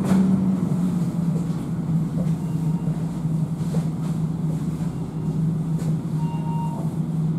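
Inside a moving Alstom Citadis low-floor tram: a steady low hum from the tram's drive over a rumble of the running gear as it rolls slowly along.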